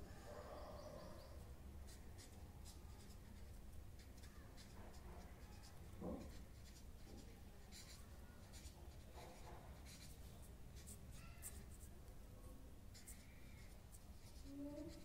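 Pen writing on paper: faint, quick scratching strokes, with one brief louder sound about six seconds in.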